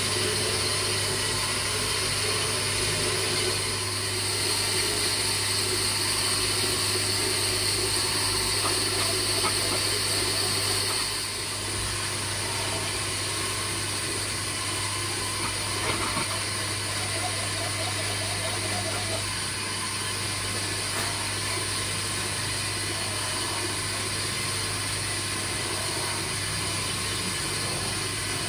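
Homemade bench spindle, an electric motor belted to a long shaft, running steadily with a low hum while a carved wooden clock face is pressed against the spinning wheel at its end. The level drops slightly about 11 seconds in.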